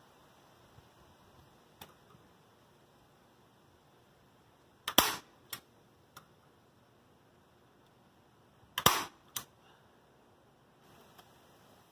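Staple gun firing twice, about four seconds apart, each sharp snap followed about half a second later by a lighter click, driving staples through a kayak's fabric skin into the wooden cockpit carlings.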